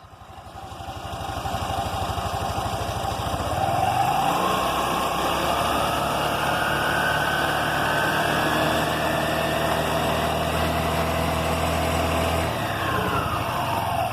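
Italika motorcycle's small single-cylinder engine running with its CVT belt cover removed: idling, revved up about four seconds in and held, then dropping back to idle near the end. It runs without the rattle the owner had been chasing, which he puts down to a loose cover and worn gasket.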